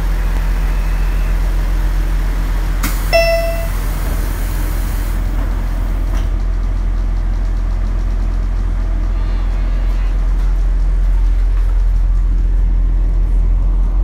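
Diesel railcar engine idling in a steady low hum. About three seconds in comes a sharp hiss of released compressed air, with a short high tone, and the engine grows a little louder near the end.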